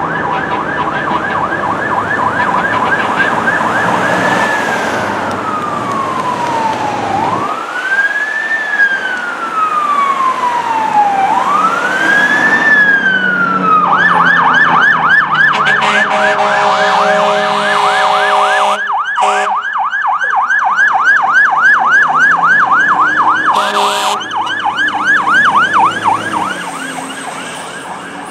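Fire truck siren in a slow wail, rising and falling about every three to four seconds, then switching about halfway through to a fast yelp. Long horn blasts sound over the yelp at the switch and again briefly near the end.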